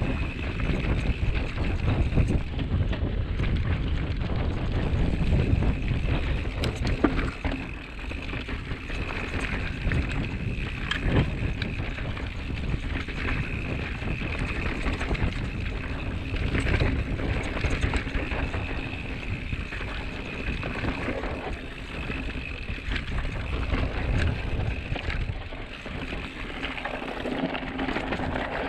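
Mountain bike rolling fast down a dirt trail: steady rumble and rattle of tyres and frame over rough ground, with wind on the microphone and sharp knocks over bumps. An on-and-off steady high whine from the bike runs under it.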